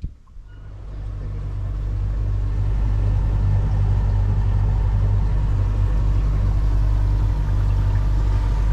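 Boat motor running steadily at cruising speed: a low, even drone at a constant pitch that grows louder over the first couple of seconds, then holds.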